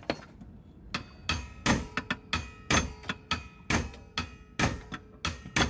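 Repeated hammer blows on a steel socket extension held against the seized central pin of an Aries windvane, driving the pin out. The metal strikes ring and come about three a second, starting about a second in.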